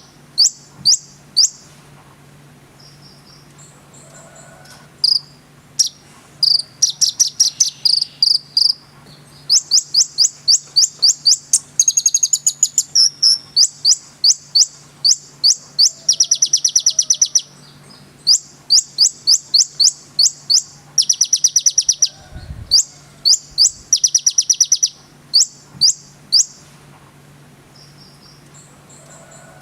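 Konin, a sunbird, singing in repeated bursts of very fast, high chirping trills with short pauses between them. A faint steady low hum runs beneath, and a low thump comes about two-thirds of the way through.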